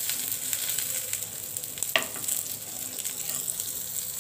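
Pointed gourd, potato and carrot pieces sizzling as they fry in oil in a nonstick pan, stirred with a spatula. One sharp tap of the spatula on the pan about two seconds in.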